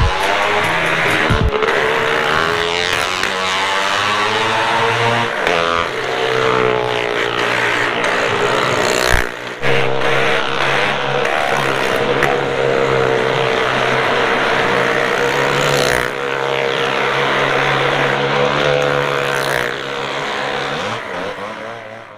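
Fairground ride running, heard from on board: a loud, continuous mechanical drone whose pitch wavers up and down, cutting off suddenly at the end.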